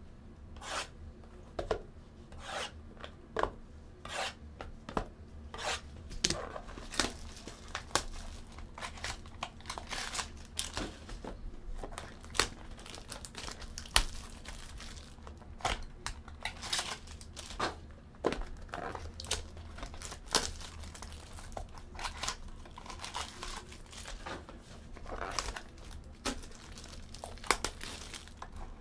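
Hands tearing and crinkling the clear plastic wrapping off baseball card packs, a dense string of sharp crackles and rustles.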